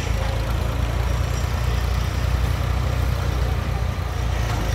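Ford farm tractor engine running steadily with a low, even drone while it pulls a trailer through shallow water.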